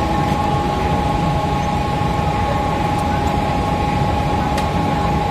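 Mumbai local electric train standing at the platform, its equipment giving a steady hum with a constant high whine.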